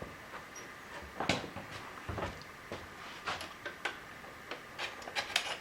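Steel transfer punches clicking and clinking as they are picked out of their set and handled, in irregular light taps with a quick run of them near the end.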